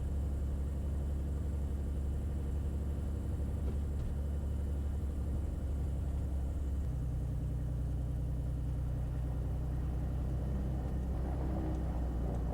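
Beechcraft A36 Bonanza's six-cylinder piston engine and propeller running at low taxi power, a steady drone whose note shifts about seven seconds in.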